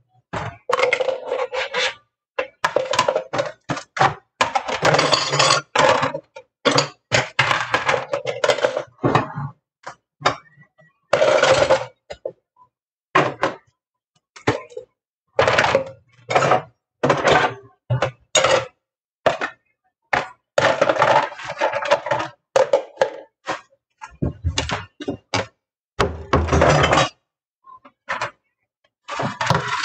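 Dishes and kitchenware clattering and knocking against each other and the counter, in many short bursts with brief silent gaps between.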